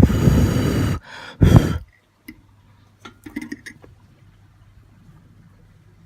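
Two hard exhaled breaths close to the microphone: one about a second long, then a shorter one half a second later, followed by a few faint clicks.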